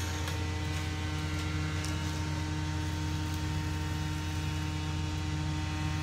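Steady low mechanical hum at one constant pitch, with no change in speed and no cutting or impacts.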